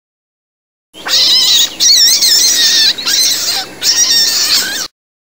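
Animal calls: four high cries with a wavering pitch, each about a second long with short breaks between, starting about a second in and cutting off sharply near the end.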